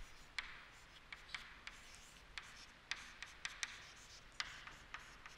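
Chalk writing on a chalkboard: faint, irregular taps and scratchy strokes as letters are chalked in.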